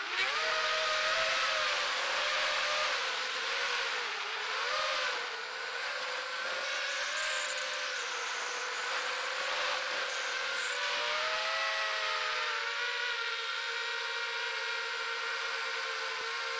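Racing quadcopter's four Emax RS2205 2300KV brushless motors spinning 5-inch three-blade props: a high whine over a rush of air that jumps up in pitch at the start, then wavers up and down with the throttle and settles steadier in the last few seconds.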